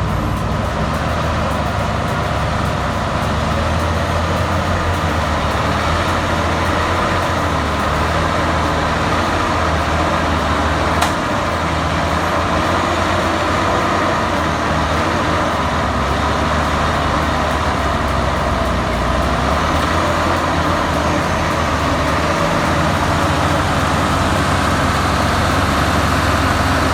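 Heavy machine's engine running steadily, a constant low drone, with a single sharp click about eleven seconds in.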